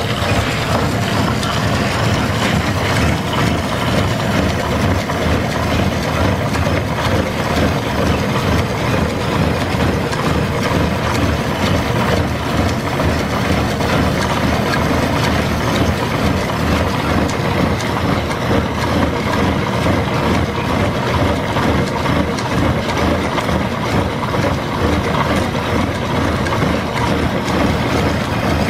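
Horizontal milling machine running under line-shaft belt drive, its gear cutter cutting teeth into a gear blank held in a dividing head: a loud, steady machining noise with no break.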